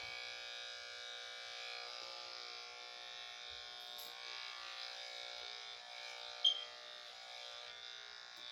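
Electric dog grooming clippers running with a steady buzz while cutting through a dog's matted coat. A short high squeak sounds about six and a half seconds in.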